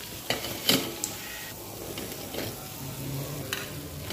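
Hot oil sizzling faintly in an appam pan, with a few sharp clicks in the first second and one more near the end.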